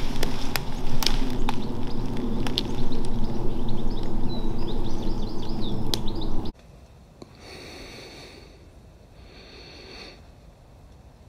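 Footsteps crunching and crackling through dry leaf litter and twigs, with a small bird chirping in short calls. About six and a half seconds in the sound cuts off abruptly to a faint hiss with soft rustles.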